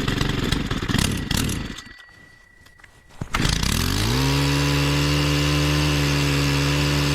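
Stihl KM 131R's 4-MIX engine, cold-started after two months unused: it sputters unevenly for about two seconds and dies. A little after three seconds in it catches, rises in pitch and settles into steady running.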